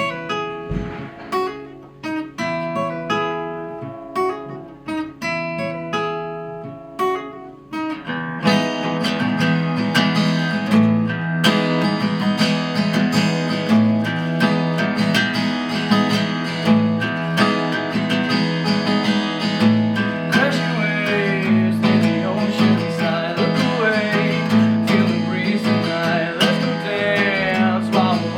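Acoustic guitar song intro: single picked notes for about eight seconds, then full rhythmic strumming.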